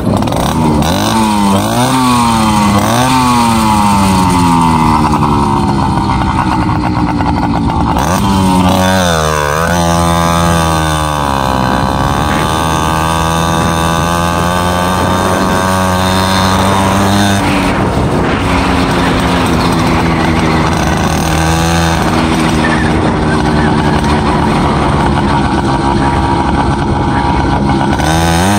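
FM-80 two-stroke race engine with a mini expansion chamber, on a motorized bicycle under way: it revs up and down in several quick swoops, drops and climbs back through the revs about ten seconds in, then holds a steady high pitch, easing off briefly twice.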